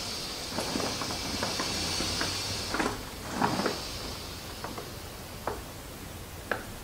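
Air hissing out of a scuba diver's buoyancy compensator jacket through the deflate button on its inflator hose, letting air out of the fully inflated jacket. The high steady hiss slowly weakens, with scattered small clicks and knocks from handling the hose.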